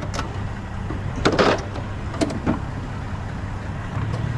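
Scrap being handled at a curbside pile: a few sharp knocks and one short scrape about a second and a half in, over a steady low engine hum.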